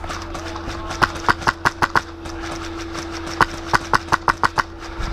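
Airsoft rifle firing rapid single shots, two strings of about six or seven sharp cracks, the second starting about three and a half seconds in, over a steady low hum.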